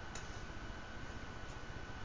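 A single faint click just after the start, over a steady low hum with a thin, constant high-pitched whine.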